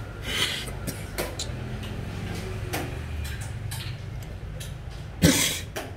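Scattered light clicks and knocks of xiangqi pieces and a table, with one louder knock a little over five seconds in, over a steady low background hum.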